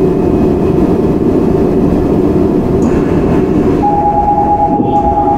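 Seoul Metro 4000-series subway train with GEC Alsthom GTO traction equipment running, heard from inside the car: a steady, dense rumble of wheels and running gear. About four seconds in, a steady high whine joins.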